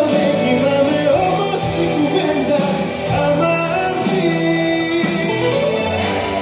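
Live Greek popular music from a band: a melodic lead line over a steady bass and rhythm.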